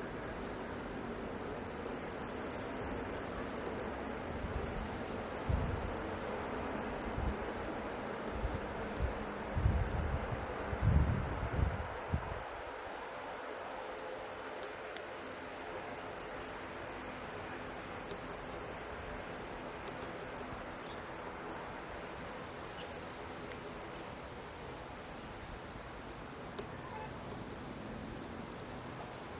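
Insects chirping in a steady, evenly pulsed high note. Between about 5 and 12 seconds in, low rumbling thumps rise under it.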